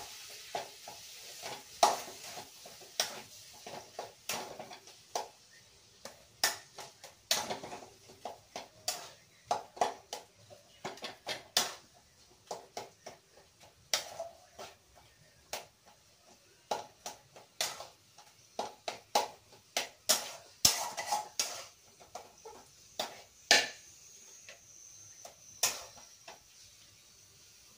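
A spoon knocking and scraping in a kadai (wok) as boiled potatoes are mashed and stirred into fried masala: irregular sharp clacks about one to two a second over a faint sizzle.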